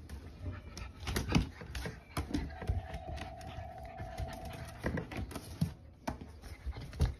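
French Bulldog puppies' claws clicking and scraping on plastic tubs as they scramble at the rims, with a puppy whining in one held note for about two seconds midway.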